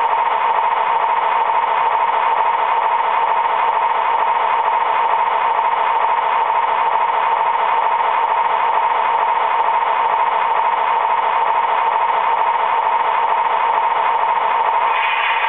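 Diesel engine idle sound from the Proto-Sound 2.0 system of an MTH O-scale Conrail SD40-2 model locomotive, played through its small onboard speaker: a steady engine run, thin with little bass.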